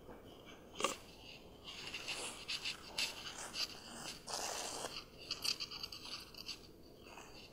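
Irregular scraping and rasping of something being handled close by: a sharp click about a second in, then a run of short rips and scrapes that dies away near the end.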